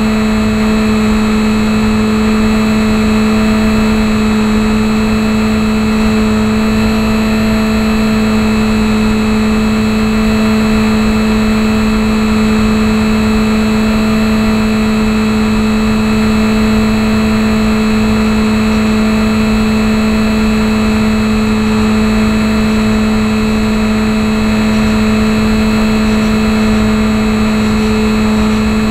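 HobbyZone Champ RC plane's electric motor and propeller, heard from a camera riding on the plane: a steady buzzing whine at a constant pitch through level flight.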